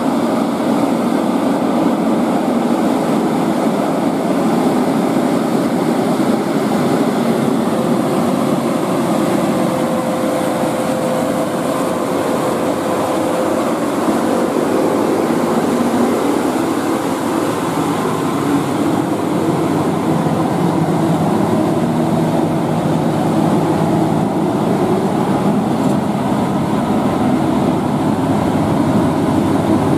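Scania truck's diesel engine running steadily under load on a steep climb, mixed with road noise. A faint steady whine joins it for several seconds about a third of the way in.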